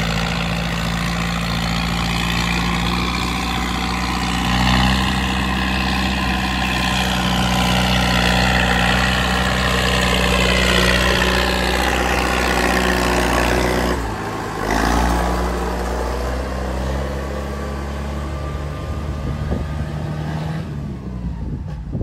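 Farm tractor's diesel engine running steadily as the tractor pulls a loaded trailer past, with a short break in the sound about two-thirds of the way through.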